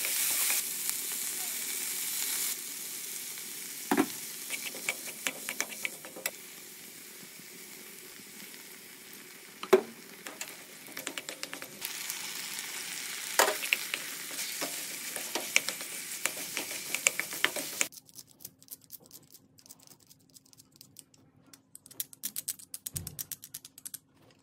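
Vegetables and sauce sizzling in a frying pan while a wooden spatula stirs them, with a few sharp knocks of the spatula on the pan. About 18 seconds in, the sizzling stops and a run of small clicks follows as green onion is snipped with kitchen scissors.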